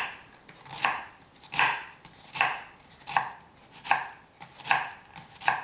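Chef's knife dicing an onion on a wooden chopping board: about eight even chopping strokes, a little over one a second, each blade stroke cutting through the onion and meeting the board.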